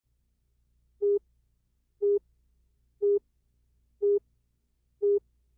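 Countdown slate beeps: five short, identical beeps of one steady tone, one each second, counting down to the start of a broadcast.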